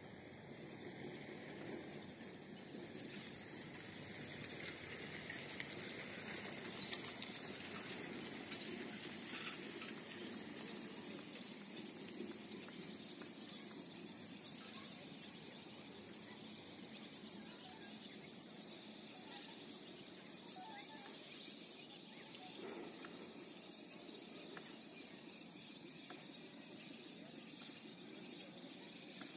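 Faint evening outdoor ambience: a steady high insect trill under a soft murmur of calls from a large flock of birds flying over.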